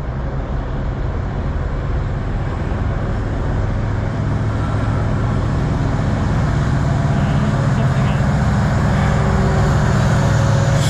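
Diesel freight locomotives approaching and passing close by: a steady low engine drone that grows gradually louder as the lead CN unit draws alongside.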